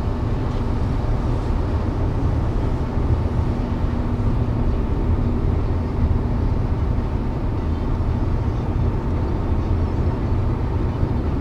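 Steady low rumble of a car driving at highway speed, road and engine noise as heard inside the cabin.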